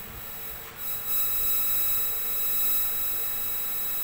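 Steady electronic whine and hum from a powered-up CRT TV chassis on the bench, several tones at once, from a high whine down to a low hum. It gets a little louder about a second in, then holds steady.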